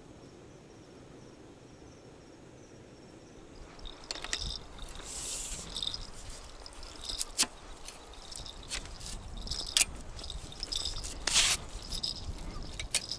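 Faint, steady chirring of crickets at night. About four seconds in, this gives way to footsteps, rustling and sharp clicks of handling while a landing net is carried along a grassy bank.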